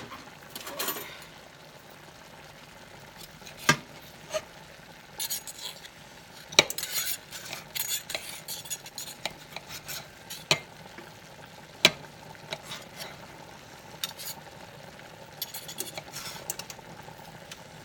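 A steel knife and fork clinking and scraping against a stainless steel skillet as chicken and vegetables are cut up in it, with a few sharp clinks. A faint steady sizzle of the stir-fry cooking runs underneath.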